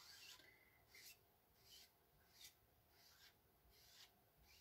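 Faint scraping of a small squeegee being drawn across a chalk transfer screen, pushing chalk paste onto a wooden heart cutout: about six short strokes, roughly one every three-quarters of a second.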